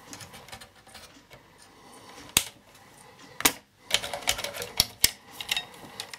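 Irregular sharp clicks and taps of plastic wiring connectors and a hand tool being worked on the circuit board of an opened satellite set-top box. There are two single clicks in the middle, then a quicker run of clicks a little later.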